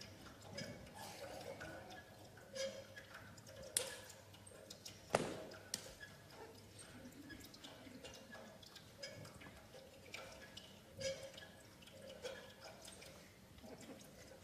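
Quiet stage noises of a barefoot performer moving and handling a jacket: scattered soft taps and knocks, with two sharp clicks about four and five seconds in.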